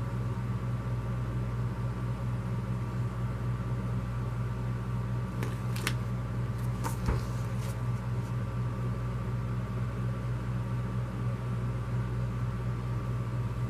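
Steady low mechanical hum throughout, with a few brief clicks and rustles of paper flyers being handled in the middle.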